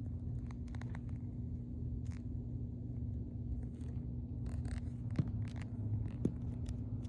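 Steady low electrical hum, with scattered small clicks and handling scrapes and two sharper ticks in the second half.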